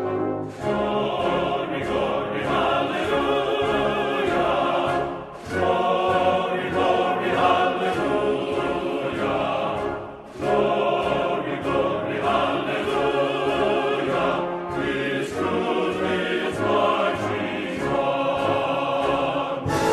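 Music with choral singing over an orchestral backing, in sustained phrases with wavering held notes and short breaks between phrases.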